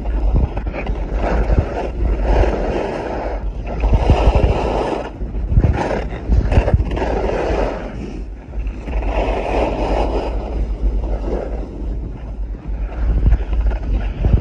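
Wind buffeting a phone's microphone inside a waterproof pack, under skis scraping across packed snow in surges that swell and fade every second or two as the skier turns.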